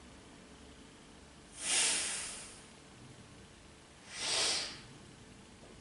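A woman breathing hard in time with double leg lifts: two loud, hissing breaths about two and a half seconds apart.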